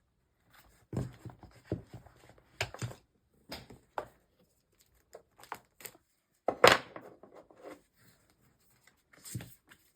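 Paper tab dividers and inserts rustling and clicking as they are handled and fitted into a ring-bound planner, in irregular bursts with short pauses and one louder click about two-thirds of the way in.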